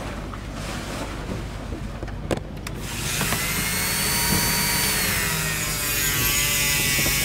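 Dremel 4000 rotary tool on a flexible shaft switched on about three seconds in, its high whine rising and then running steadily, after a few clicks of handling.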